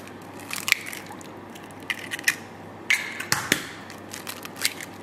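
Two eggs cracked one after the other and their shells pulled apart over a stainless steel mixing bowl of batter: a handful of short, sharp cracks and taps.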